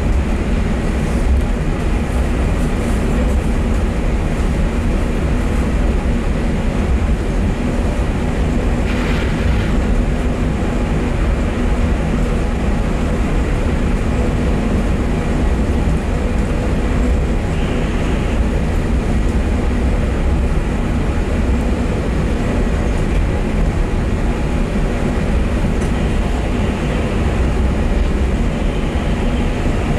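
Inside the car of the Terminal Link airport people-mover train, a cable-hauled automated shuttle, running along its elevated guideway: a steady low rumble. A brief higher-pitched sound comes about nine seconds in and another around eighteen seconds.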